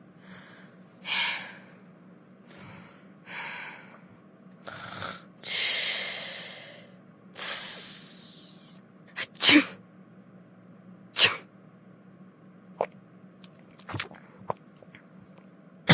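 A person making a run of breathy vocal sound effects: hisses and sneeze-like bursts, two longer hissing ones near the middle, then several short sharp sneeze sounds spaced out toward the end.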